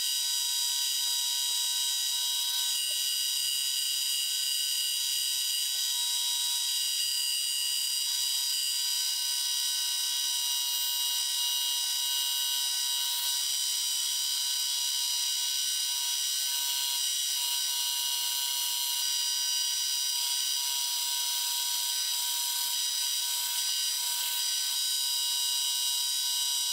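Drill press running steadily while drilling an aluminium plate: a continuous high-pitched machine whine made of several steady tones.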